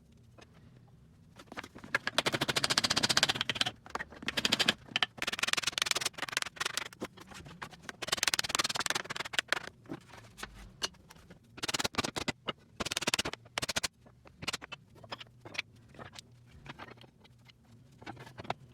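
Hand tools working wood: several bursts of rapid scraping strokes, with scattered light taps and clicks in between.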